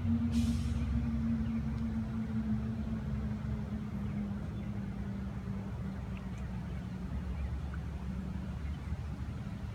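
Steady low motor hum with a held tone that sags slightly in pitch, over a low rumble; a brief hiss about half a second in.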